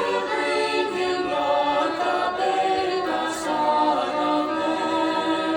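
Choir singing, with long held notes that shift from chord to chord.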